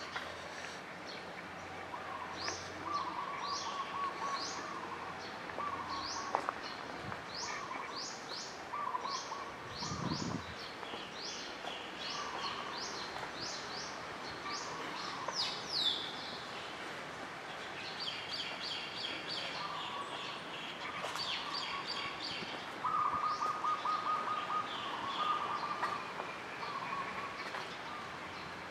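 Several small birds chirping and calling, with quick runs of sharp high chirps and lower chattering notes between them.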